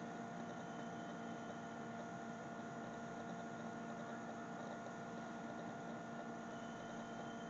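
Faint, steady electrical hum, a few constant tones over a low hiss, with no other sound.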